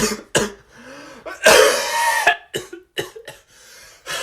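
A person coughing in a run of short coughs, with one longer, harsher cough about a second and a half in.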